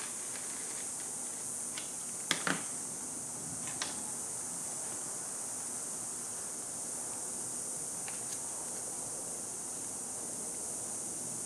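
Steady high-pitched hiss, with a few light clicks and taps of small tools and the foam wing being handled, bunched about two to four seconds in and once more near the end.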